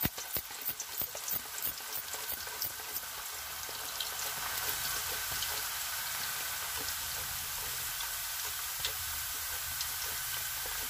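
Thin raw elakki banana slices frying in hot oil, a steady sizzle that grows louder about four seconds in. For the first three seconds a hand slicer's strokes click about three times a second as slices drop into the oil.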